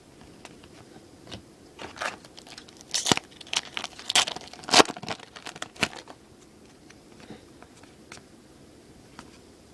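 Baseball trading cards and their packaging being handled: a run of sharp crinkles and snaps in the middle, loudest around the fifth second, then only light rustling.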